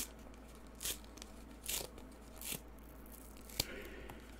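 A 2022 Topps Rip trading card being torn open along its perforated edge: about four short rips of card stock, roughly one a second, then a single sharp tap near the end.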